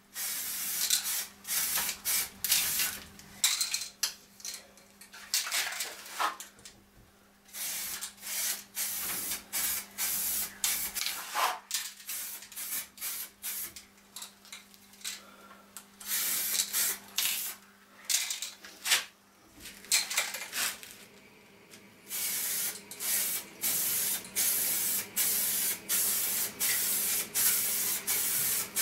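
Aerosol spray-paint can spraying in many short bursts of hiss with brief pauses between them. Some bursts run a little longer in the second half. This is a first coat of paint going on.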